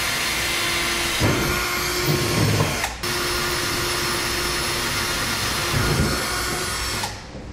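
Cordless drill running at speed with a small bit, boring pilot holes through the steel truck bed and the frame beneath it. Two drilling runs with a short break about three seconds in; the drill stops near the end.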